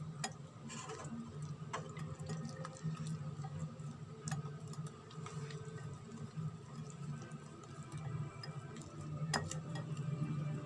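Wire whisk beating a thick cornflour-and-egg batter in a glass bowl: steady wet rhythmic ticking, with a couple of sharper clinks of the wires against the glass.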